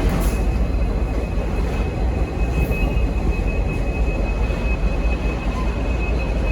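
V/Line N class diesel-electric locomotive running with a steady low engine rumble. A thin, steady high-pitched wheel squeal rides over it for most of the time.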